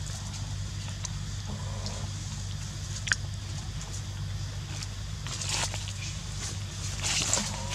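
Dry leaf litter crackling and rustling under monkeys' feet, growing louder from about five seconds in, over a steady low hum. A single sharp click about three seconds in.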